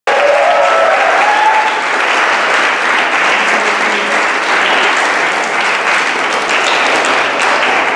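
Concert audience applauding steadily, the clapping loud and even.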